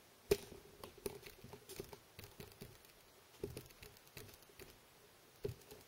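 Handling noise from a camera being moved and repositioned over a workbench: one sharp click about a third of a second in, then scattered light clicks, taps and rubbing.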